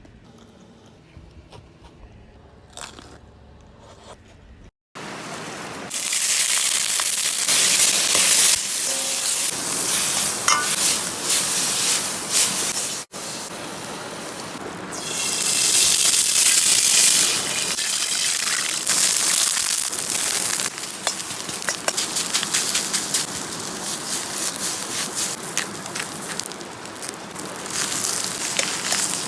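Food frying in hot oil, sizzling loudly, after a few seconds of quieter handling sounds; the sizzle starts suddenly about five seconds in and briefly cuts out partway through.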